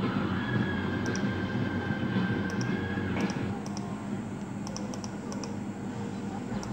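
Computer mouse clicking: about ten short, sharp clicks at irregular intervals, several in quick succession past the middle, over steady low background noise. A faint high held tone sounds through the first half.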